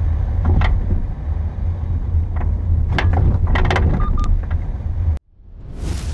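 A 2009 Kia Sorento R being driven, with a steady low rumble and repeated loud clunks and bangs from the front passenger-side suspension: the crashing, breaking noise of failed front-end parts. Two short beeps sound about four seconds in; the sound then cuts off suddenly a little after five seconds, and a swelling whoosh follows.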